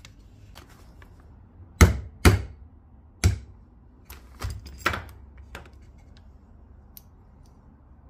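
Hammer striking the end of a 3 mm T-handle Allen key used as a punch, driving the pivot pin out of a Magura MT7 brake lever. Three sharp strikes about two to three seconds in, then a few lighter taps.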